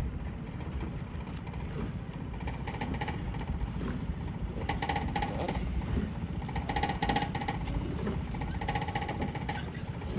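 Small motor boat's outboard engine running steadily under way, with a low rumble and wind on the microphone. From about halfway through, a higher pitched tone swells in and out roughly every two seconds.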